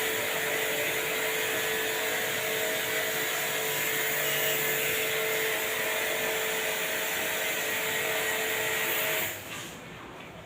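A small electric motor running steadily with a hiss, with a faint hum of a few steady tones; it cuts off about nine seconds in.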